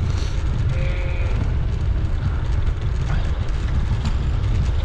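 Steady low wind rumble buffeting the microphone of a camera on a moving bicycle.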